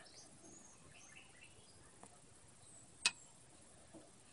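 Quiet room tone with faint, short, high chirps like distant birds, a small tick about two seconds in and one sharp click a second later.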